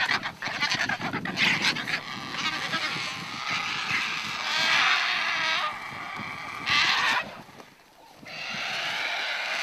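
A flock of vultures squabbling over a carcass: a dense din of overlapping harsh cries, with a brief lull about eight seconds in.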